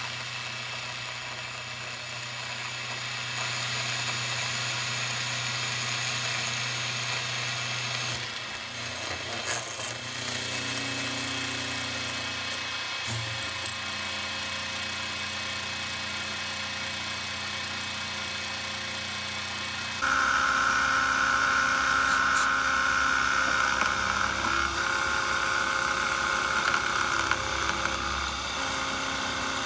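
Grizzly G0759 milling machine's spindle running with an end mill cutting pockets in metal plate: a steady machine whine with cutting noise. About twenty seconds in the sound changes abruptly, becoming louder with a stronger whine.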